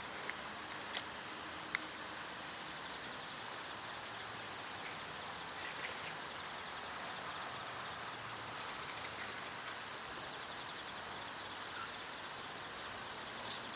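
Steady rushing noise of flowing stream water, with a few brief high-pitched chirps about a second in and again around six seconds.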